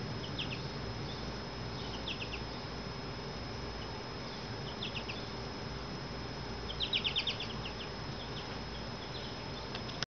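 American goldfinches chirping: scattered short bursts of quick high notes, with a faster run of about eight notes about seven seconds in. A steady thin high tone and a low hum run underneath.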